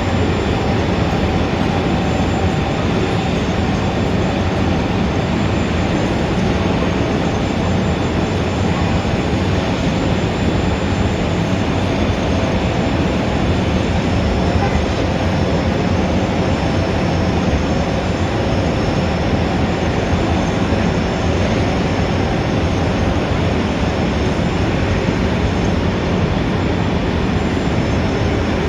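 Busy city street traffic ambience: a steady, even din of vehicles with no single event standing out.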